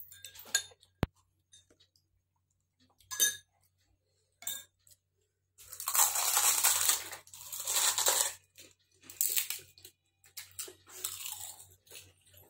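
Crisp hollow gupchup (panipuri) shells being cracked open with a thumb in a few sharp cracks, then whole shells being crunched and chewed in several loud, noisy bursts from about halfway through.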